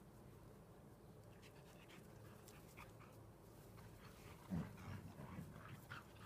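Dogs panting faintly while tugging on a rope toy, with a brief louder low sound about four and a half seconds in and a few softer ones after it.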